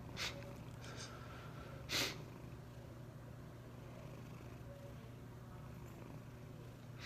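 Two short sniffs about a second and a half apart, from a person crying.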